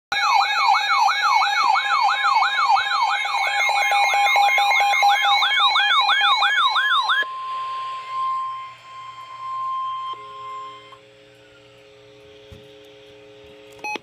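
A weather alert radio sounds a loud electronic siren alarm, a warble that sweeps up and down about three times a second. It cuts off suddenly about seven seconds in and gives way to the single steady NOAA Weather Radio warning alert tone, which lasts a few seconds. Quieter steady tones and a click follow near the end.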